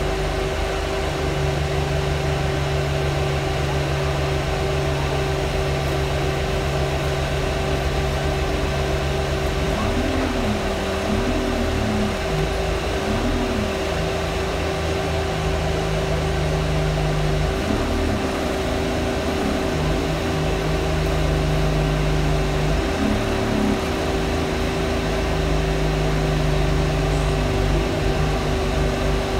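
A bus's loud fan droning steadily at one unchanging pitch over the engine. Underneath it, the engine note shifts and glides up and down a few times partway through as the bus changes speed.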